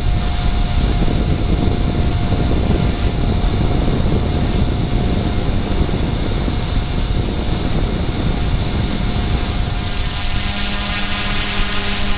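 E-flite Blade mCPX micro RC helicopter in flight, heard from a keychain camera mounted on the airframe. The brushless main motor gives a steady high whine over loud, even rotor-wash rumble on the microphone.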